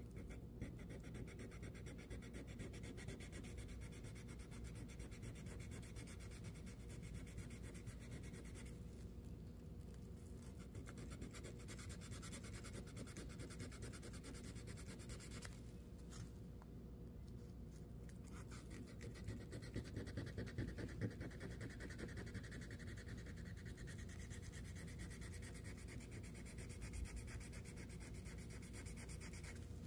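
Rusty steel knife blade being scrubbed by hand with an abrasive to take off rust: a steady fine scratching, with short pauses about nine and sixteen seconds in.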